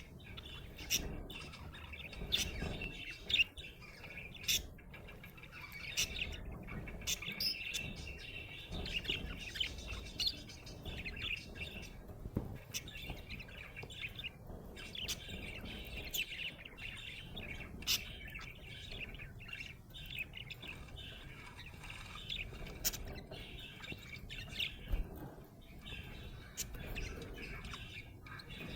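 Budgerigar chirping and chattering non-stop: a steady warble with many short, sharp chirps scattered through it, the contented chatter of a happy budgie.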